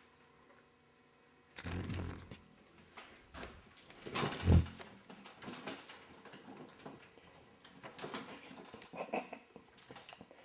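A cat pouncing at a moth: irregular thumps, scrabbling and rattling of its paws against the table and the window blinds. They start about a second and a half in, with the loudest thump about four and a half seconds in.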